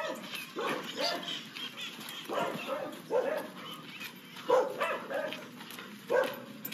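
A dog barking repeatedly: a string of short barks, roughly one every second, some in quick pairs.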